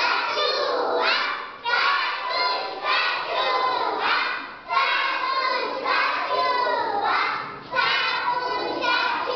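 A class of young children chanting together in unison, in loud rhythmic phrases about a second long.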